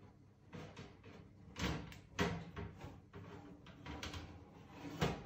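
Kitchen clatter: a few sharp knocks and bangs, like cupboard doors or dishware being handled, with the loudest hit near the end.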